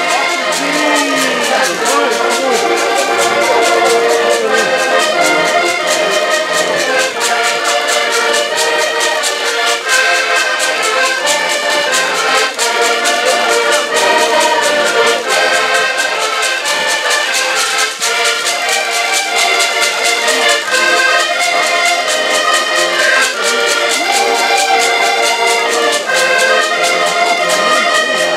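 Five accordions and a trombone playing a tune together in ensemble, with the accordions' chords and melody over a steady beat.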